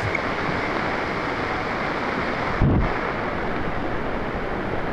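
Torrent of muddy floodwater rushing, a steady, even rush of water noise. A brief low thump on the microphone comes a little past halfway.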